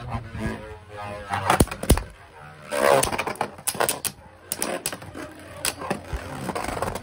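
Two Beyblade Burst QuadStrike spinning tops, Divine Xcalius and Ultimate Valtryek, battle in a plastic Beyblade stadium. Their spinning plastic is heard with repeated, irregular sharp clicks and clacks as the tops collide and glance off the stadium walls.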